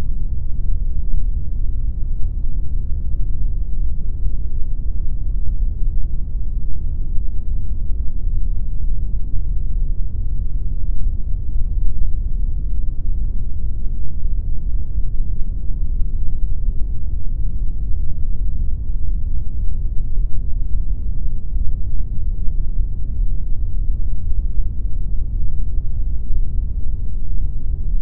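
Steady synthetic pink noise: a constant, even rush with most of its weight in the low end and nothing changing.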